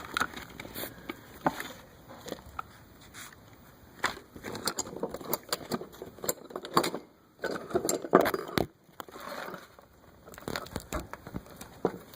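Irregular clicks, taps and clatter of hands handling wiring and clips while a small charger is hooked up to power a switch panel.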